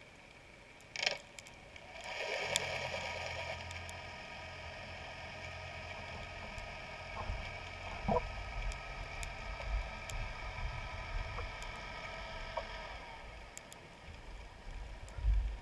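Boat motor and propeller heard underwater: a steady whine with a low rumble beneath it that comes in about two seconds in and eases off near the end, with a couple of sharp clicks.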